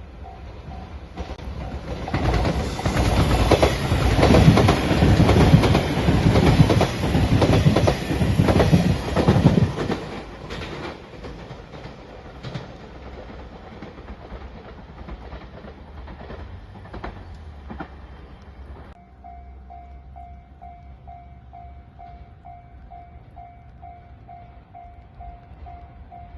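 A JR Shiokaze limited express electric train passes at speed over the level crossing, its wheels clattering over the rail joints; the sound swells for several seconds, then fades. Later the level crossing's warning bell starts ringing in a steady, rapid pulse.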